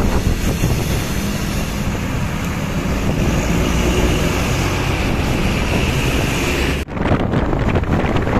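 Bus on the move: engine and road noise with strong wind buffeting the microphone. The sound drops out for an instant near the end.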